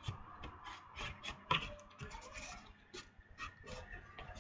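Faint scratching and rubbing of cardstock being handled and pressed into folds by hand, with scattered light taps; one sharper tap about one and a half seconds in.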